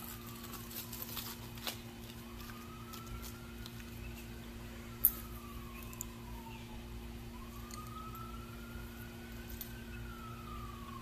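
Emergency-vehicle siren wailing, its pitch slowly rising and falling over several seconds, over a steady low hum. A few light clicks and knocks sound in the first two seconds, and one sharp one about five seconds in.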